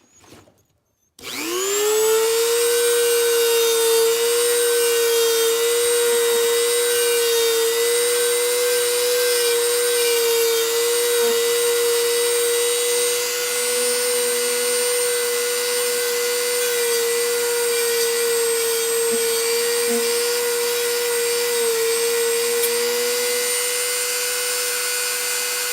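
Small high-speed power tool spinning up about a second in and running at a steady high-pitched whine, cutting and sanding slits into the steel chain handles of a butterfly knife; it stops abruptly at the end.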